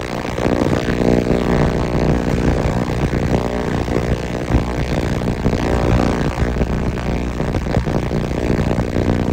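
KECOOLKE ultrasonic jewelry cleaner running mid-cycle, a steady buzz from its transducer through the water-filled tank.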